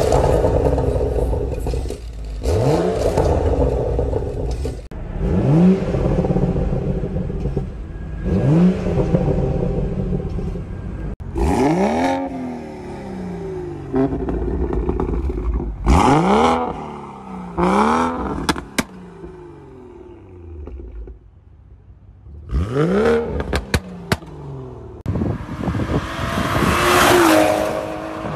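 Modified BMW F-chassis 3 and 4 Series exhausts, running valved sport axlebacks or catless downpipes, revved in one quick blip after another, each rising and falling in pitch. Sharp pops and crackles come off the throttle around the middle. Near the end one car pulls hard with a long loud rising exhaust note.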